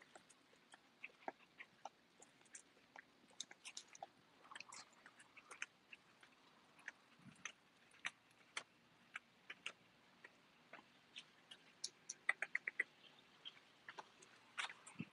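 Faint, irregular light clicks and ticks of small dogs' claws on pavement as they walk on leashes, with a quick run of about five clicks a little before the end.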